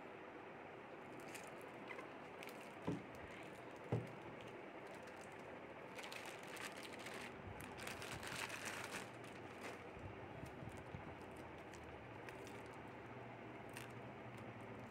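Plastic packaging bags crinkling and rustling as they are handled and pulled open, loudest around the middle, with two dull knocks about three and four seconds in.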